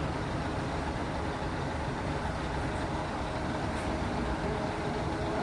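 Steady mechanical noise of sawmill machinery running, an even drone with no separate strikes or cuts.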